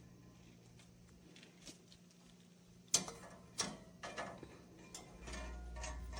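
Quiet room tone, then from about halfway a few sharp ticks roughly half a second apart, leading into plucked-string music with a low hum near the end.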